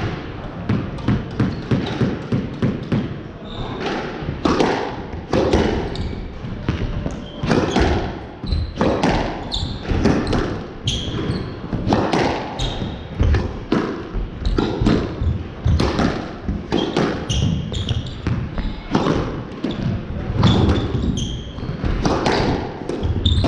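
Squash rally: the ball cracking off rackets and the court walls every half second to a second, ringing in the hard-walled court, with short squeaks of court shoes on the wooden floor.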